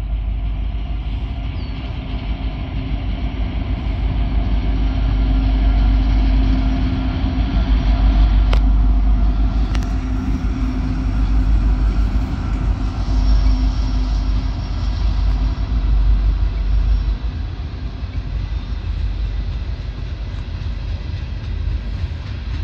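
Norfolk Southern diesel locomotives pulling a coal train past, their engines droning over a heavy low rumble that is loudest through the middle as the locomotives go by. The drone then eases, leaving the rumble of the coal hopper cars rolling on the rails.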